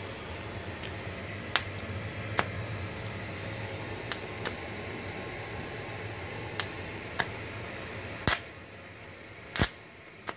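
TIG welding arc on steel from a torch with a manual argon valve, run off a small inverter welder: a steady hiss with a low hum, broken by sharp cracks every second or so. About eight seconds in, the steady hiss drops away, with two loud snaps around that point.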